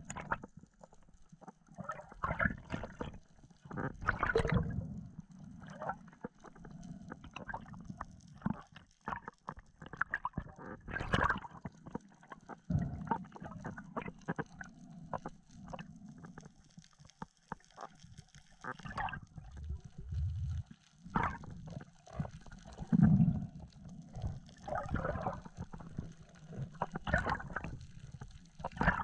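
Water gurgling and bubbling in irregular bursts, heard underwater through a camera housing.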